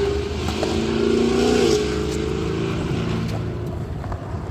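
Skateboard wheels rolling across a concrete skatepark bowl: a steady low rumble with a hum whose pitch bends up briefly about a second and a half in as the board's speed changes.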